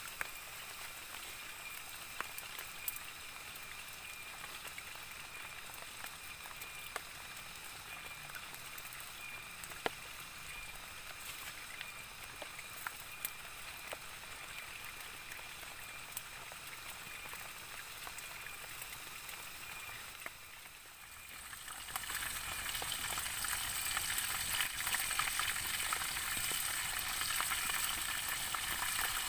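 Chicken frying in oil in a pan over a wood campfire: a steady sizzle with scattered sharp pops. About 22 seconds in, after a brief dip, the sizzle becomes much louder and denser.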